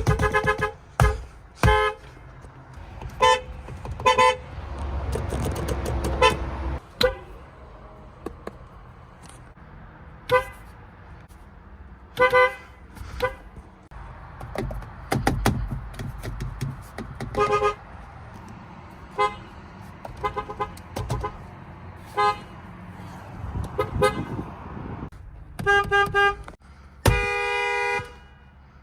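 Car horns of many different vehicles honking one after another in short beeps and toots, with traffic rumbling between them. A longer horn blast of about a second comes near the end.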